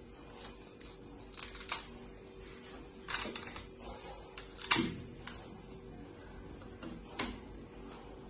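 Kitchen knife chopping and scraping the skin off cassava (tapioca) roots on a countertop: irregular sharp knocks and taps, the loudest a little before five seconds in.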